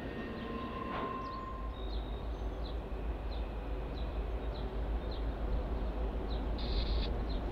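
Low, steady rumble of a Norfolk Southern freight train on the rails, growing slightly louder, with a bird chirping repeatedly over it.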